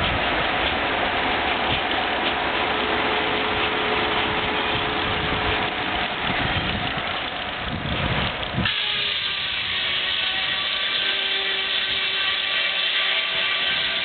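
Large circular sawmill blade cutting through a log, a dense noise that stops suddenly about nine seconds in; the blade then spins free with a steady ringing tone.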